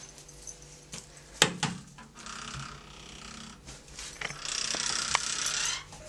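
Interior door's knob and latch clicking as the door is opened: one sharp click about a second and a half in, a few fainter clicks later, and a soft hiss of noise over the last couple of seconds.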